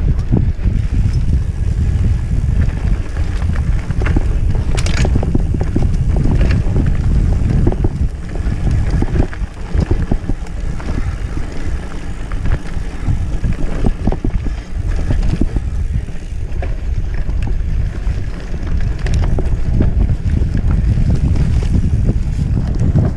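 Mountain bike riding fast over a rough dirt trail: wind buffeting the microphone in a steady loud rumble, with frequent rattles and knocks from the bike jolting over bumps.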